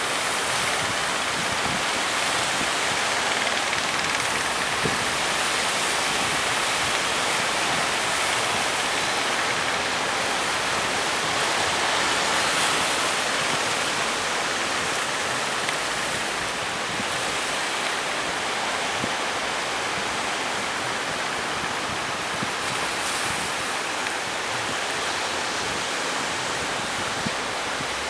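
Ocean surf: waves breaking and washing in a steady rush.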